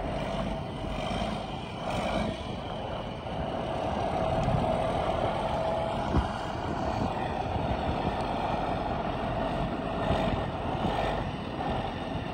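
Diesel engine of a tandem-axle grain truck running steadily as the truck drives slowly around a dirt lot, with one sharp click about six seconds in.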